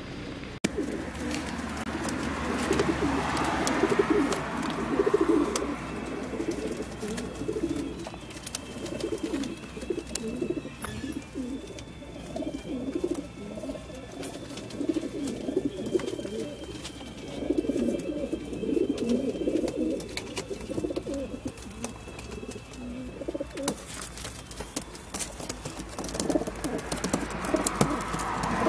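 Many racing pigeons cooing together, packed in the crates of a pigeon transport truck, a continuous overlapping chorus of low coos. Scattered sharp clicks sound over it, and a soft rush of noise rises a few seconds in and again near the end.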